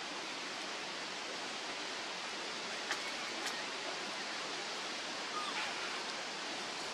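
Steady outdoor background hiss, with a couple of faint clicks about three seconds in and faint short calls a little after five seconds.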